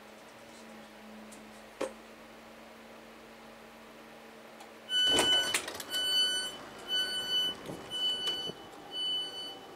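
Train passenger doors working: a loud burst of noise, then the door warning beeper sounding about five high, even beeps roughly once a second, over the carriage's low steady hum.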